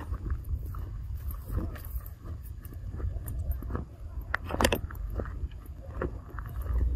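Steady low outdoor rumble with scattered small clicks and rustles, and a louder crackle about four and a half seconds in.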